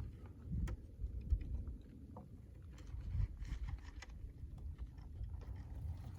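Wind buffeting the microphone: a low, gusty rumble that rises and falls, with a few faint clicks over it.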